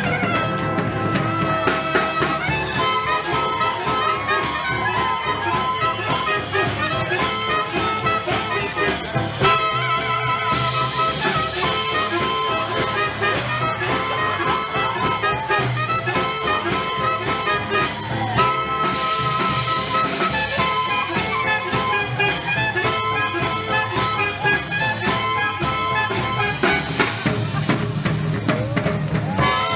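Swing jazz played by a band with brass horns and a drum kit, a steady, upbeat beat throughout.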